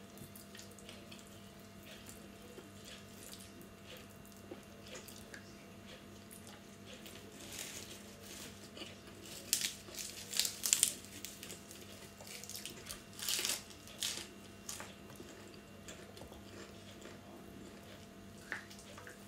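Close-miked eating sounds: quiet chewing and mouth noises while eating shirataki noodles, with a few louder crisp crunches of fresh lettuce leaf about ten and thirteen seconds in, over a faint steady hum.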